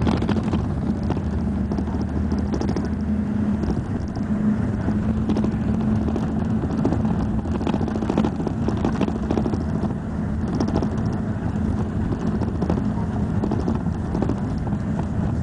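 A motor vehicle in motion, its engine running with a steady low hum under continuous road noise, with scattered light rattles and clicks.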